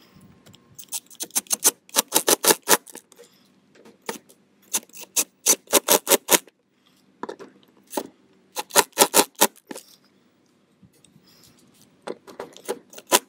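Cordless Makita impact driver driving heavy-duty exterior Torx screws through a spigot's mounting flange into the wall, run in several short bursts of rapid hammering clicks with pauses between, as the screws are snugged down tight.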